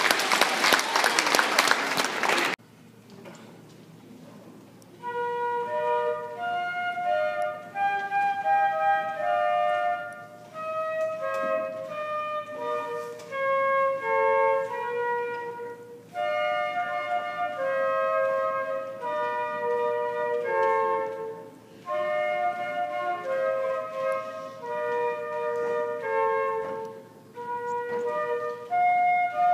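Applause dies out in the first couple of seconds. A few seconds later a flute begins a melody in the middle-to-high register, played in phrases of about five seconds with short breaks between them.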